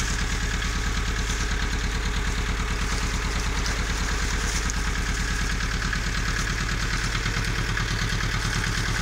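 Engine running steadily with a fast, even low pulse, driving the rotating mesh drum of a root washer, mixed with water churning and splashing as valerian roots are rinsed in the tank.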